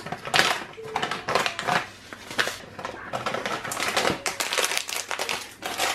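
Plastic packet of chia seeds crinkling as it is handled and shaken, with a series of irregular crackles as the seeds are sprinkled onto oats.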